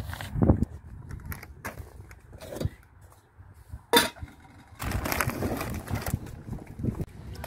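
Bags and luggage being handled in a car boot: scattered knocks and clicks, a sharp knock about four seconds in, then the rustle of a woven plastic shopping bag being pulled out.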